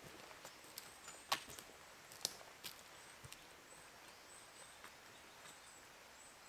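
Faint footsteps on a forest floor fading as the walker moves away, with a few sharp twig snaps, the loudest about a second in. A quiet, steady outdoor hiss lies underneath.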